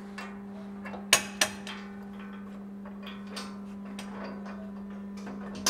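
Light metallic clinks of long bolts and washers being fitted up through a steel cross member and 7-gauge steel skid plate: two sharp clicks about a second in, then scattered lighter ticks. A steady low hum runs underneath.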